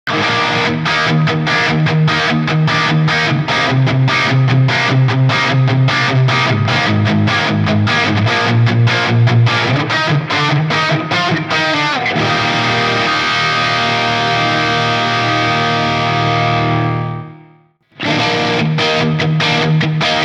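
PRS Standard 24 electric guitar with DMO pickups played through a Line 6 Helix LT with distortion: a fast, evenly picked riff, then about twelve seconds in a chord rings out and fades away. It falls silent just before eighteen seconds, and the riff starts again.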